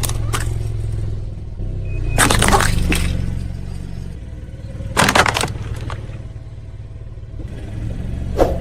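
A car tyre rolling over objects and crushing them, with two loud crunching bursts, one about two seconds in and a shorter one about five seconds in, over the steady low hum of the car's engine idling.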